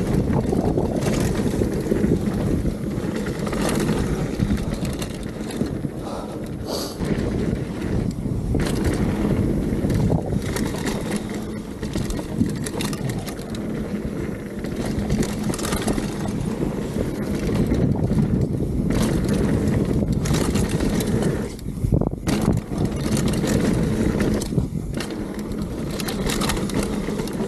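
Mountain bike riding fast downhill on a dirt and gravel trail: tyres rumbling and crunching over the surface, with frequent clicks and knocks from the bike rattling over bumps. Wind rushes over the camera microphone throughout.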